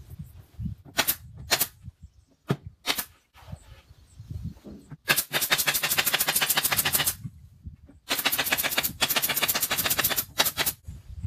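A nail gun fires four sharp shots into a wooden speaker cabinet. Then a cordless power driver runs screws in twice with a rapid, even rattle, each run two to three seconds long.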